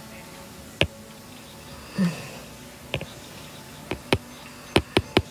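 Handling noise of a hand-held phone: about seven sharp clicks and knocks on the phone, sparse at first and coming three in quick succession near the end, with a dull thump about two seconds in, over a low steady hiss.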